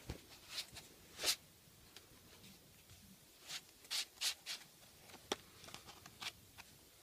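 Faint paper rustling: hands rubbing and brushing the pages of a picture book in a string of short scrapes, the loudest about a second in and a cluster around four seconds in, with a few small ticks.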